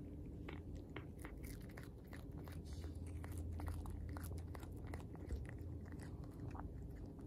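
Cat chewing up a dragonfly: a quick, irregular run of small crisp crunches and clicks as it bites through the insect's body, one crunch a little past five seconds standing out as the loudest.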